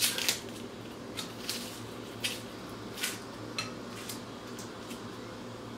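Kitchen knife peeling the dry skin off an onion: short, crisp scratches at irregular intervals, over a faint low steady hum.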